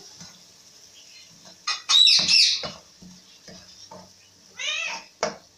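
Steel ladle scraping and tapping against a black iron kadai while stirring masala frying in oil, with short squealing scrapes about two seconds in and again near the end, over a faint sizzle.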